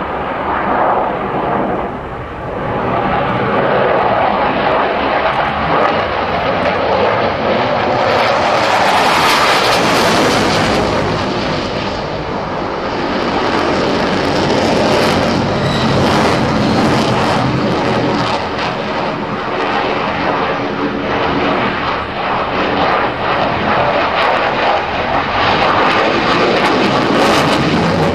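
Twin jet engines of a MiG-29 fighter, two Klimov RD-33 turbofans, running continuously as the jet manoeuvres overhead. It is a loud, steady jet noise whose tone sweeps slowly up and down as the aircraft moves. From about eight seconds in it turns harsher, with a crackling edge.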